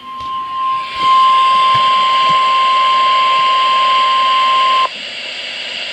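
NOAA Weather Radio warning alarm tone: a single steady high beep, faint at first and loud from about a second in, that cuts off suddenly near the end, over radio static hiss. The tone signals that a warning message follows, here a flash flood warning.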